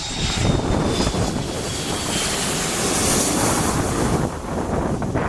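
Jet airliner passing low overhead: a steady engine roar with a faint falling whine, loudest about three seconds in.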